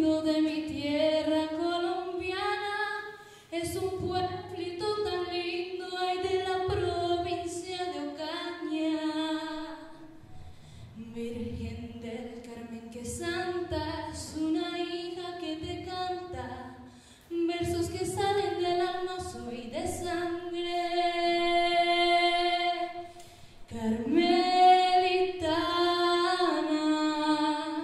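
A woman singing unaccompanied, in long melodic phrases with brief pauses between them.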